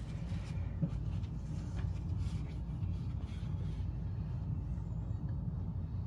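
Faint, soft rubbing of a damp paper towel wiped along a door and its frame, over a steady low background rumble.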